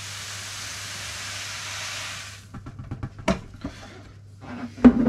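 The last of the crushed malt being poured into the mash water, a steady hissing rush that stops abruptly about two and a half seconds in. A run of light knocks and clatters follows, the loudest a sharp knock near the end.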